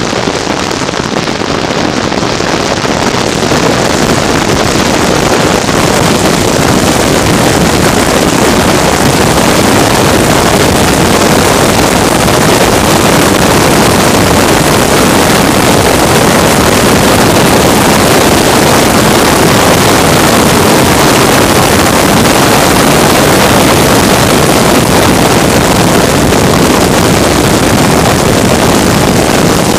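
Loud, steady vehicle noise with heavy wind buffeting the microphone, rising a little over the first few seconds and then holding steady.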